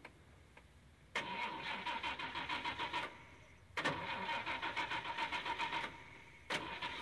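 A car engine being cranked by its starter three times, each attempt a rapid pulsing chug with a steady whine, lasting about two seconds before cutting off.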